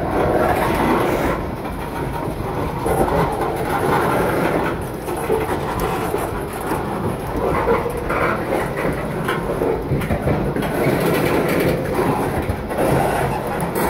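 Loaded CSX coal hopper cars rolling by: steel wheels rumbling on the rail, with repeated clacks and rattles of the cars.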